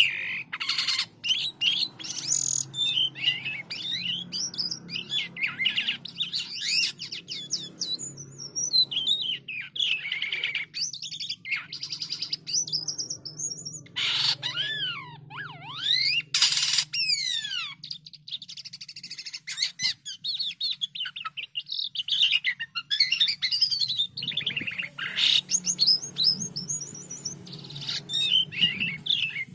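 White-shouldered starling (jalak kapas) singing a long, varied song of winding whistles that sweep up and down, mixed with rapid chatter and a few harsh bursts, full of learned phrases.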